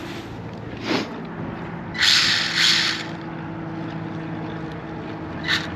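Small electric motor of a WLtoys 1/28 micro RC buggy whining steadily, with its plastic tyres scrubbing on concrete in short hissy bursts, loudest for about a second from two seconds in. The buggy is spinning in circles because of a broken rear hub.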